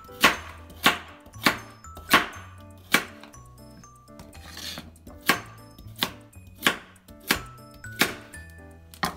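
A kitchen knife chopping carrots into thick rounds on a plastic cutting board: about eleven sharp chops, roughly one every two-thirds of a second, with a short pause midway.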